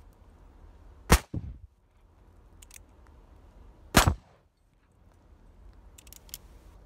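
Two revolver shots about three seconds apart, from a .36 Pietta 1851 Navy cap-and-ball revolver and a .45 Colt 1873 Single Action Army fired in turn. The first shot is followed about a quarter-second later by a fainter second crack.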